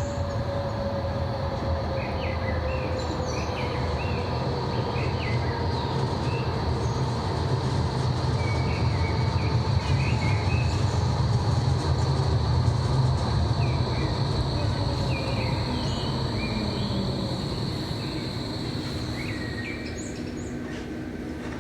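A tram moving slowly past, its low rumble swelling to a peak around the middle and fading toward the end, with a steady high electric whine and a tone that slowly falls in pitch. Birds chirp throughout.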